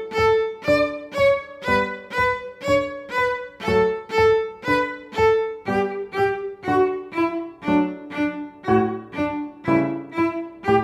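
Cello played in thumb position, high in its range: a steady, even run of separately bowed notes, about two a second, in a perpetual-motion technique exercise.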